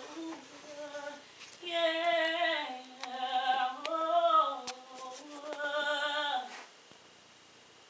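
A young girl singing behind a closed bedroom door: several phrases of held, sustained notes with short breaks between them, stopping near the end.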